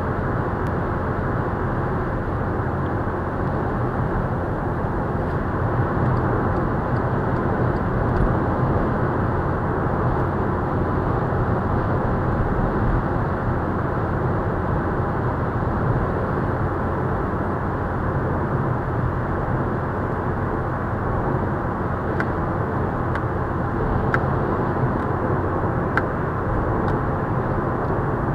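Steady road and wind noise of a Volkswagen Scirocco cruising at motorway speed, heard from inside the cabin. A few faint ticks come near the end.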